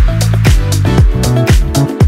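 Background music with a steady kick-drum beat, about two beats a second.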